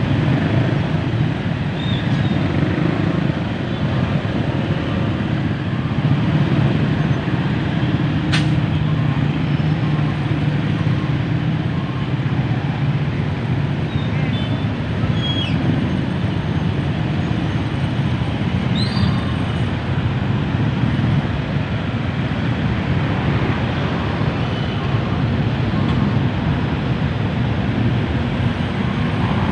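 Dense, slow-moving road traffic: a steady din of engines and road noise from cars, trucks and buses crawling in a jam. It has a sharp click about eight seconds in and a few short high squeaks.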